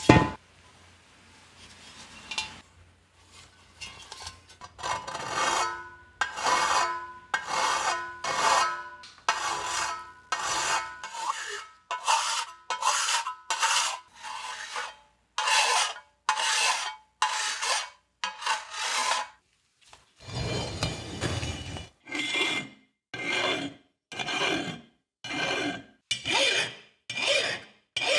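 Repeated back-and-forth rasping strokes of hand abrasion on a metal part, such as filing or sanding rust, with a faint metallic ring. The strokes start a few seconds in at about one a second, pause briefly past the middle, then come quicker.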